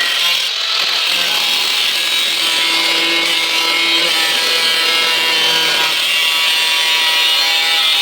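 Angle grinder running against the steel of the door bottom, cutting and grinding the metal to prepare it for the new patch panel: a steady motor whine over a gritty rasp that does not let up.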